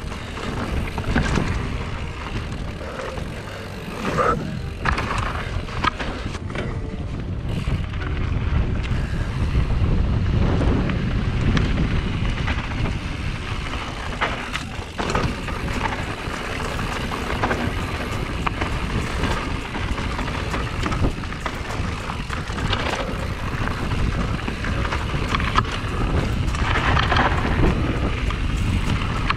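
Mountain bike descending a dirt singletrack: wind buffeting the microphone over tyre noise on dirt, with frequent small knocks and rattles from the bike over bumps.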